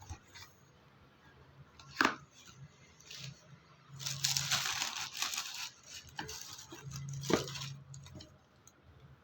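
Shoe packaging being handled and torn open. There is a sharp snap about two seconds in, a stretch of rustling and tearing from about four to six seconds in, and another snap just after seven seconds.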